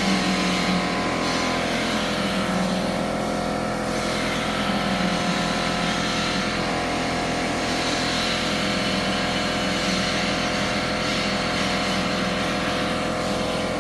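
Doosan Lynx 220LC CNC lathe running under its program, its spindle turning at speed. It gives a loud, steady sound of several held tones over a hiss.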